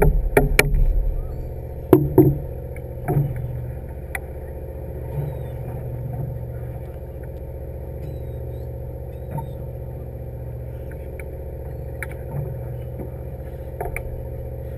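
A fishing boat's engine running with a steady low hum, with a few sharp knocks and thumps, the loudest near the start and about two seconds in.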